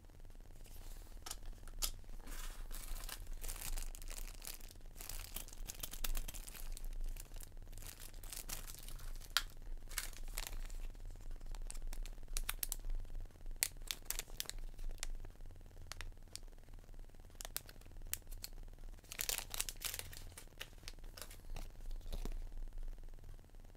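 Plastic packaging and paper being handled: irregular crinkling and rustling of an anti-static bag and a paper sheet.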